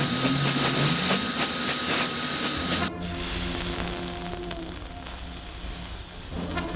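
A loud steady hiss of rushing air that cuts off about three seconds in and starts again at once, a little quieter. Background music plays underneath.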